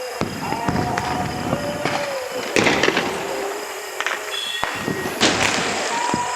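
Diwali firecrackers bursting: several sharp bangs, the loudest about two and a half seconds in and again just past five seconds, over a continuous background of more distant cracker noise.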